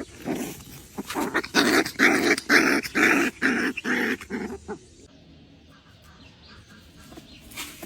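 A puppy growling and yipping in a quick run of short cries, which stop about five seconds in.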